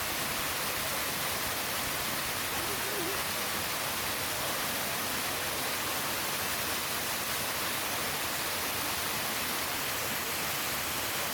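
Steady rush of a large waterfall: an even wash of falling water at a constant level throughout.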